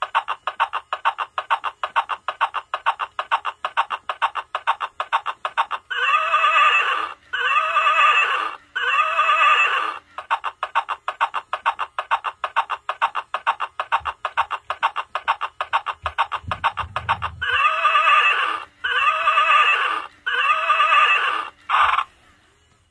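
A plush rocking horse's built-in sound unit plays recorded galloping hoofbeats, a rapid, even clip-clop, which twice gives way to three whinnies in a row. There is a low thud about two-thirds of the way through, and the sound cuts off just before the end.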